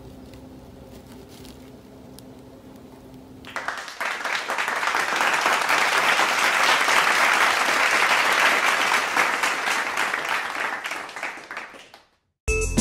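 Crowd applause, starting suddenly about three and a half seconds in and fading out near the end. Before it, only a quiet steady low hum.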